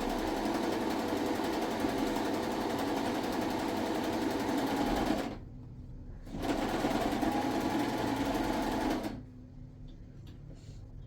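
A small machine motor running steadily, stopping about five seconds in, starting again a second later, then stopping about nine seconds in.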